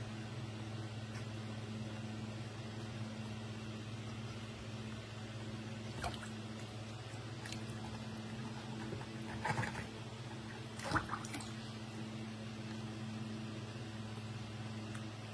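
Water sloshing and splashing as a baby monkey moves about in a plastic basin of bathwater, with a few louder splashes about six, nine and a half and eleven seconds in, over a steady low hum.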